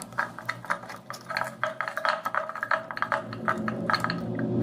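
Irregular light clicks and knocks of a hand working at the plastic pipe fittings under a washbasin, quick taps coming several to a second.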